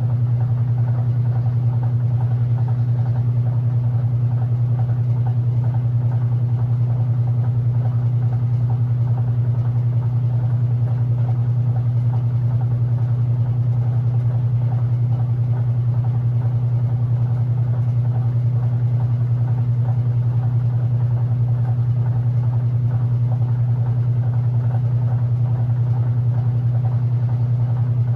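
Electrolux LE06DBD top-load washing machine running with a steady low hum.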